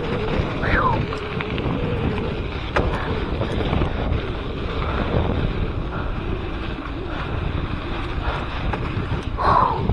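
Wind buffeting an action camera's microphone over the rumble of a mountain bike's tyres on a dirt trail, with occasional clicks and rattles from the bike. A short falling squeak comes about a second in, and another near the end.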